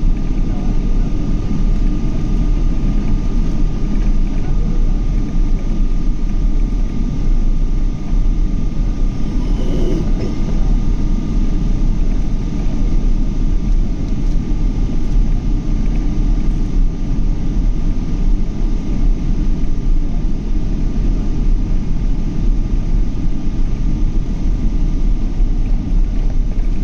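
Boeing 777 jet engine and airflow noise heard inside the passenger cabin: a loud, steady deep rumble with a thin, steady whine over it.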